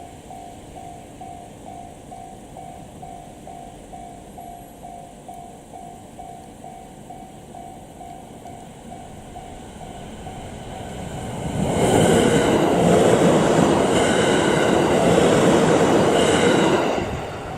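Level crossing warning bell ringing in an even, repeating rhythm. From about eleven seconds in, a JR East E129 series electric train rises over it and passes the crossing at speed, its wheels clattering on the rails for about five seconds. It then fades quickly near the end.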